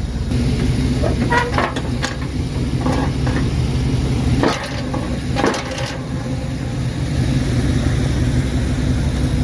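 A snowplow truck's engine runs steadily under load as the plow blade pushes into a tree, with wood cracking and snapping several times, about a second and a half in and again around the middle.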